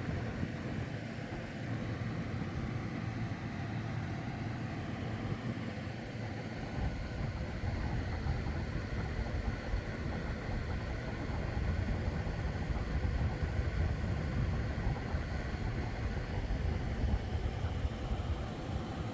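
Electric fan and air conditioner running: a steady whir with a low rumble that grows stronger about seven seconds in.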